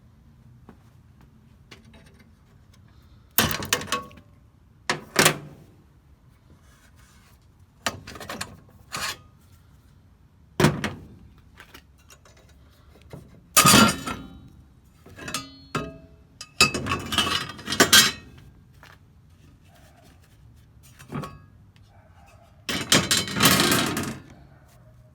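Irregular knocks, clatter and short scraping of tools and parts being handled, with some longer rustling scrapes around the middle and near the end.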